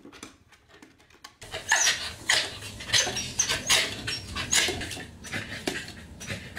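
Corgi barking in a quick run of sharp yaps, starting about a second and a half in, with a few brief high squeaky notes among them.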